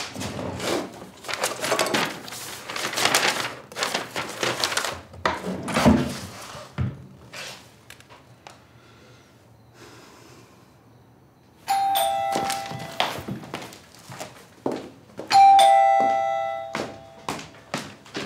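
Rustling and knocks of things being handled and searched, then a ding-dong doorbell rings twice, about four seconds apart, the second ring louder and dying away slowly.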